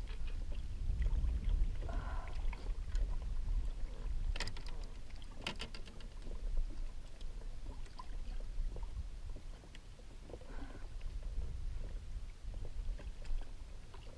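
Low, steady rumble of wind and water around a sit-on kayak on open sea, with a few sharp clicks about four and five and a half seconds in.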